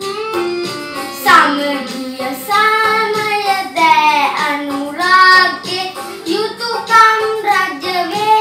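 A young boy singing a Sinhala Vesak devotional song (bathi gee) in long, held phrases over instrumental accompaniment.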